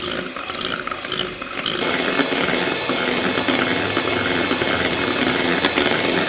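Handheld electric mixer whisking egg whites into meringue in a glass bowl, being beaten to medium peaks. The beaters run steadily and grow louder about two seconds in.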